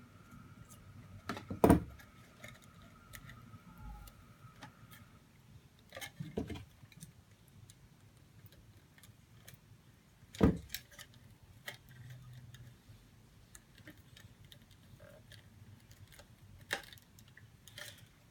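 Packaging and a small plastic device being opened and handled: a few sharp knocks and clicks spaced seconds apart, the loudest about two seconds in and about ten seconds in. A faint steady high tone runs under the first five seconds.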